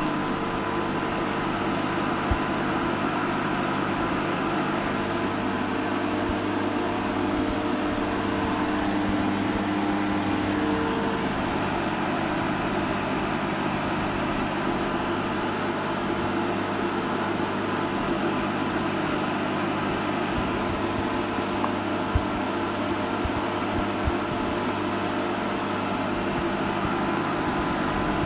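Refrigerant recovery machine running steadily, its compressor and cooling fan humming with several held tones, while it draws refrigerant out of a car's A/C system; a few faint clicks.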